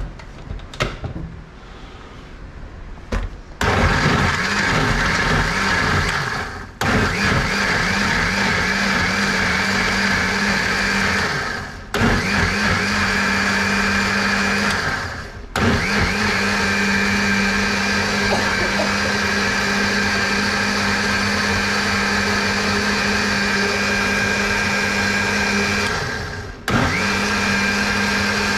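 Panasonic countertop blender puréeing deseeded chillies with a little water. After a few light clicks of handling, the motor starts about three and a half seconds in and runs in long bursts, stopping briefly and restarting four times.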